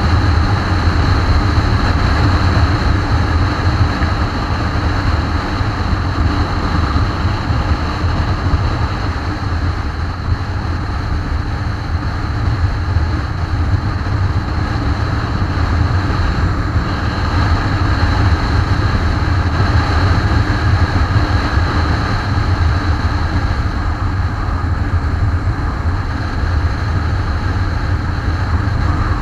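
Motorcycle cruising at road speed: a steady, deep wind rumble on the microphone over the bike's engine.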